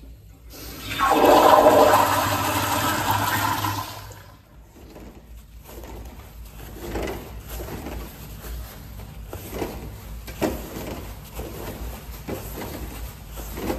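Commercial toilet's push-button flushometer valve flushing: a loud rush of water starts about half a second in, holds for about three seconds, then falls away to quieter running water with a few faint knocks.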